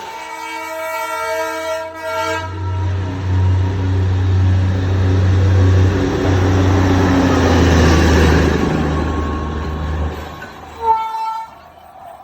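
Darjeeling Himalayan Railway toy train toots for about two seconds, then runs with a loud low rumble and rushing noise for several seconds, and gives a second short toot near the end.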